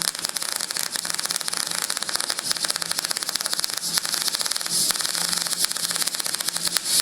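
MIG welder arc crackling and spitting with rapid, irregular pops during a test plug weld on sheet steel. The wire feed speed is set slightly low, which can be heard in the arc.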